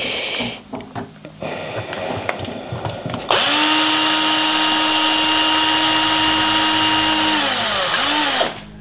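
A few handling clicks and rattles, then about three seconds in an electric screwdriver runs steadily for about five seconds, backing a screw out of the RC car's axle housing. It winds down with a falling pitch, gives one short blip and stops.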